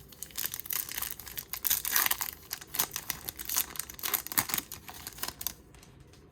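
Foil wrapper of a baseball card pack crinkling and tearing as it is ripped open, a dense irregular crackle that stops about five and a half seconds in.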